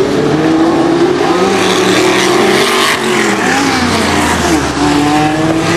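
Several stock car engines racing round the oval at once, their pitch rising and falling as they lap.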